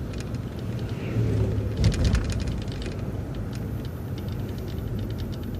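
A city transit bus running, heard from on board: a steady low engine and road rumble, with runs of quick clicks or rattles about two seconds in and again near the end.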